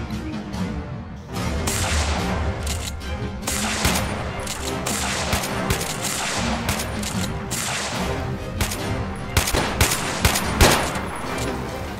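Gunfire sound effects from a rifle and pistol exchange: repeated shots and short bursts throughout, with the densest, loudest cluster near the end, over background music.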